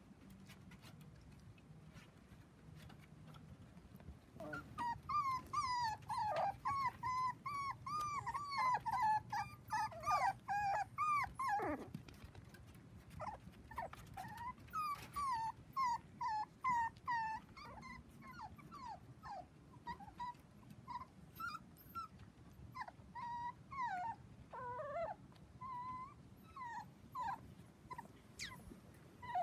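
Four-week-old dachshund puppies whining: a rapid run of short, wavering, high-pitched cries that starts about four seconds in. The cries come thickly at first, with one long cry sliding down in pitch, then thin out into scattered whines.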